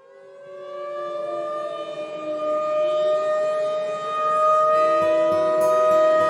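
Air-raid siren winding up out of silence and settling into a steady wail, with a second, lower tone sliding slowly downward beneath it.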